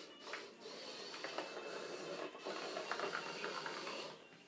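Small electric motors and plastic gear trains of a motorized LEGO Liebherr R 924 model excavator whirring as the arm and bucket move, with irregular clicks. The sound stops about four seconds in.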